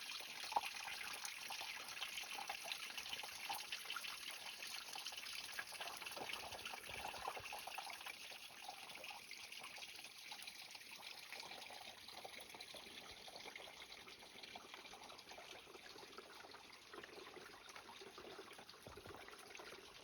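Forest creek water running and trickling in a steady rush, growing a little quieter about halfway through.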